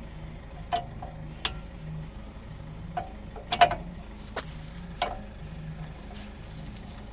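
Scattered sharp metallic clicks and clinks of steel wheel bolts and a wheel spacer being handled, about six in all, the loudest a quick double clink about halfway through.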